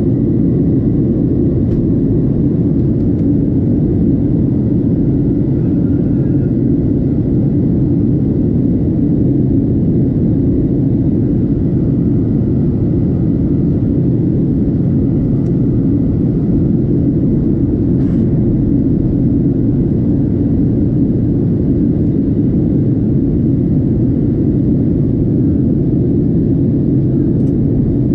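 Steady cabin roar inside a Boeing 737-700 in flight: airflow and the CFM56-7B jet engines heard from a window seat, deep and unchanging, with a faint steady high whine.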